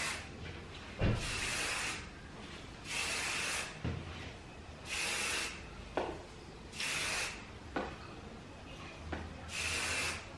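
Aerosol hairspray can spraying in short hissing bursts, about five of them, each just under a second long and roughly two seconds apart. Short sharp clicks fall between some of the sprays.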